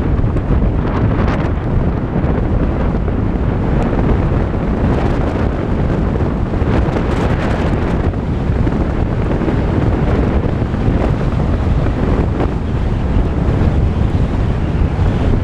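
Steady wind noise on the microphone over the low road and tyre noise of a Volkswagen Tiguan SUV driving along a dirt road.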